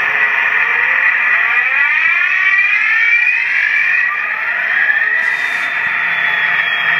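Sound decoder of an HO scale Walthers Proto 2000 GP60 model locomotive playing its diesel engine start-up sound through the model's tiny speaker, so it sounds tinny and buzzy. The engine note climbs in pitch over the first few seconds and then settles to a steady drone. The decoder is being powered from a DC controller rather than a DCC system.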